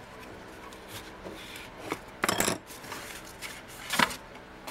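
Cardstock being handled and rubbed with a bone folder: a few short rustling scrapes of paper, the longest a little after two seconds in, and a sharper tap about four seconds in.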